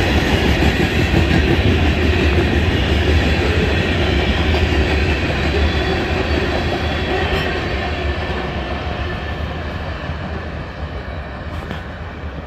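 CSX freight train's covered hopper cars rolling past on the rails with a steady rumble of wheels. It fades gradually over the last several seconds as the end of the train moves away.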